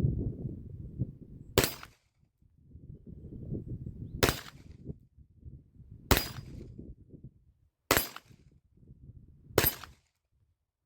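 Five single shots from a Rock Island 1911 9mm pistol, about two seconds apart, with a low rumble between them.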